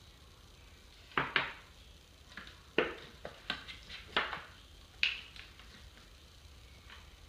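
Kitchenware being handled on a counter: a string of sharp knocks and clicks as a glass measuring cup is set down and the plastic cap of a cooking-oil bottle is worked open, spread over a few seconds.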